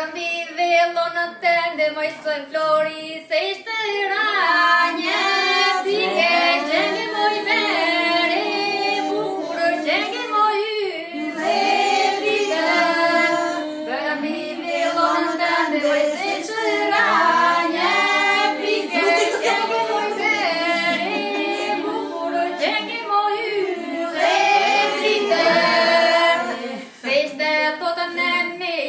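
A group of women singing a traditional Albanian wedding song together, unaccompanied, in long phrases, with a brief pause near the end.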